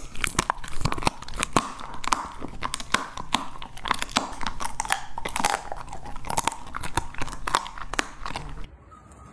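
Border collie chewing a strip of raw red meat: a busy run of sharp, wet chewing clicks, several a second, that stops a little before the end.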